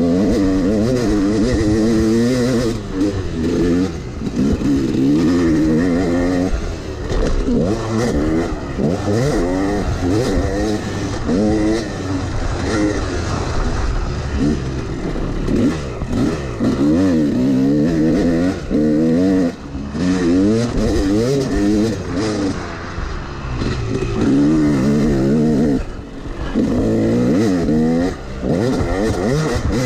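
Yamaha YZ250X two-stroke dirt bike engine, heard close from on the bike, revving hard and rising in pitch, then dropping off and climbing again over and over as the rider works the throttle and gears.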